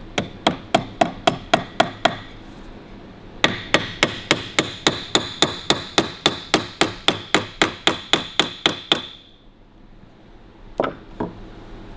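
Small hammer tapping quickly on a steel punch to open out the tiny rivets holding a speedometer face, with a metallic ring. There is a run of about eight taps, a short pause, then about twenty more at three to four a second. Two lighter knocks come near the end.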